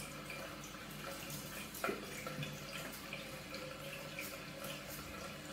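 Tap water running steadily into a sink, faint, with the light scraping strokes of a Gillette Mach 3 Turbo three-blade razor drawn through shaving gel and several days' stubble.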